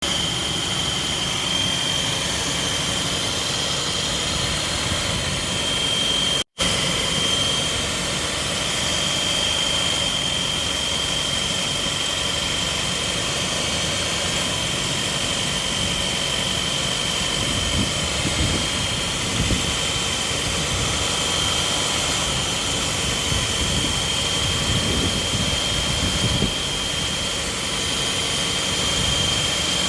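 Audi A4 1.8 TFSI turbocharged four-cylinder petrol engine running at a steady idle, with a quiet, steady high-pitched squeal over the engine sound. The sound cuts out for a moment about six seconds in.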